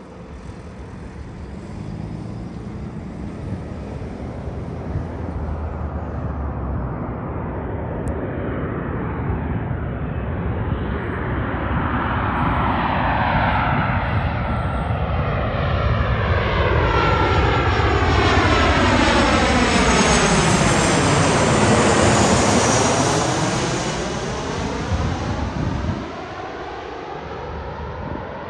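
Boeing 737-700 jet on final approach, its CFM56-7B turbofan engines growing steadily louder as it comes in low overhead. At its loudest, about 20 seconds in, there is a sweeping, swirling whoosh as it passes, and the sound drops away near the end.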